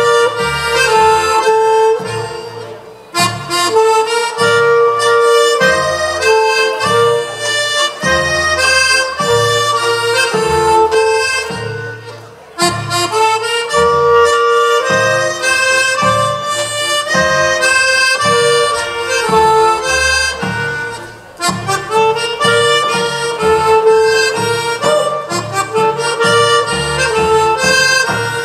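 Lively Polish folk dance music for Świętokrzyskie dances: a reedy melody over a chopped, oom-pah bass in a steady dance rhythm. It pauses briefly between phrases about three, twelve and twenty-one seconds in.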